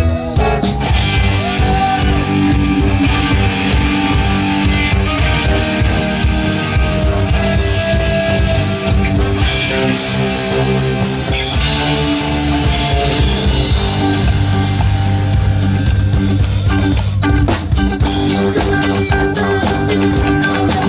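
Live rock band playing loudly: electric guitars, bass and drum kit, with a brief break in the playing about three-quarters of the way through.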